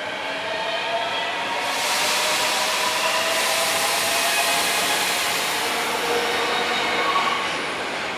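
Osaka Metro 30000 series subway train accelerating away from the platform, its VVVF inverter traction motors whining in several slowly rising tones. About two seconds in, the loud rushing noise of the cars moving past joins in, easing off near the end.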